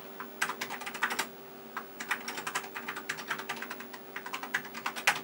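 Typing on the Tandy 1000 SX's keyboard: a quick, uneven run of keystrokes with a brief pause after the first few, over a faint steady hum.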